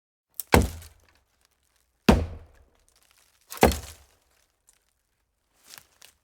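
Axe chopping into a hollow tree: three heavy, hollow thunks about a second and a half apart, each dying away quickly, then a couple of faint cracks of splintering wood near the end.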